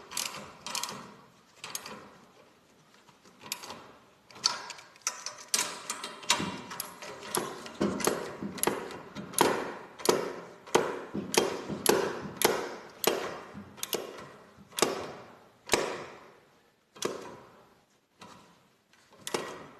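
Ratchet wrench clicking in repeated short strokes as the set screws on a garage door cable drum are tightened against the wound torsion spring. The strokes come quickly through the middle and thin out near the end as the screws get tight.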